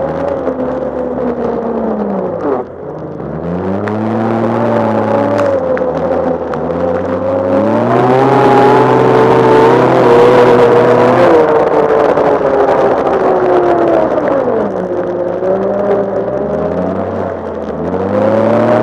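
2012 Arctic Cat F1100 Turbo snowmobile's turbocharged four-stroke three-cylinder engine running hard at speed, revving up and down as the throttle is worked. The revs drop off about two and a half seconds in, climb to their highest pitch about halfway through, ease off again, and pick up once more near the end, over a rush of wind and snow.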